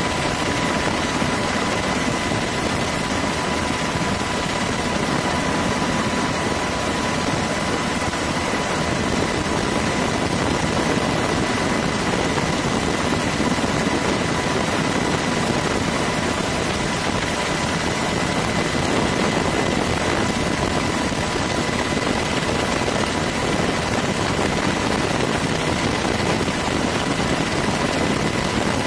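Steady engine and rotor noise of the aircraft carrying the camera in flight, with a constant high whine running through it.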